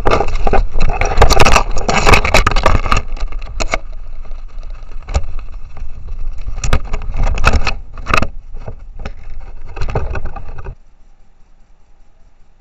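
Loud scraping, brushing and knocking right against the trail camera as something presses on it over the lens, with many sharp clicks; it stops abruptly near the end.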